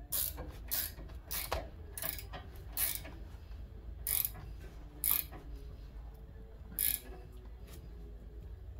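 About nine short bursts of mechanical ratcheting clicks, irregularly spaced and mostly in the first seven seconds, over a low steady hum.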